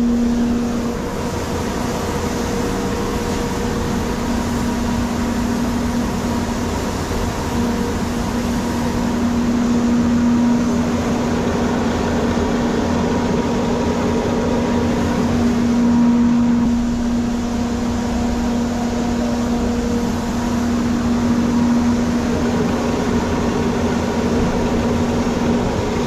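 Sawmill machinery running steadily: a constant, loud hum with one strong steady tone and fainter higher tones, over a rushing mechanical noise.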